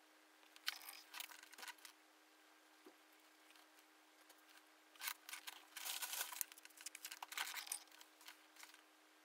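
Faint scratchy brushing of a paintbrush's bristles on canvas in two spells, briefly about a second in and again for a few seconds past the middle, over a low steady hum.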